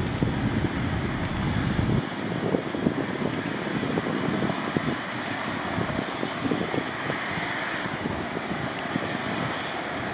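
Twin GE90-115B turbofans of a Boeing 777-300ER at climb thrust just after take-off: a steady jet rumble with a crackling low end.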